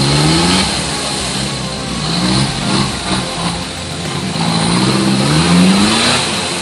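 Off-road 4x4's engine revving hard as it is driven through deep mud, rising in pitch in repeated surges, the longest from about four to six seconds in.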